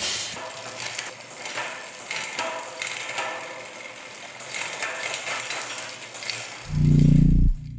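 Bicycle rear freehub ticking as the wheel coasts, an irregular clicking that slowly fades. Near the end a loud, deep bass hit lasts under a second, followed by low held tones.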